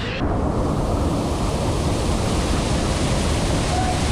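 Waterfall rushing, a loud steady roar of falling water that begins abruptly just after the start.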